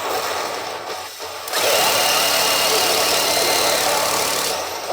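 Pachinko machine (P北斗の拳9闘神) playing its electronic game effects through its speakers. About a second and a half in, a loud, dense, noisy effect with steady high tones running through it takes over from the music. It stops abruptly near the end.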